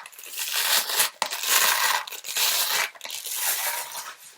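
Crinkling, scraping noise of a plastic object being handled and shaken, in several bursts of about a second each.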